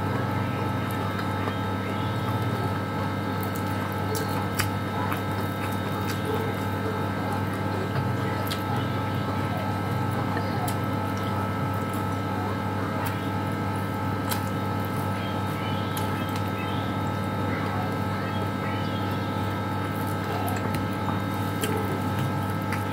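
Steady electrical appliance hum made of several fixed tones, with scattered soft clicks and smacks from eating with the fingers and chewing.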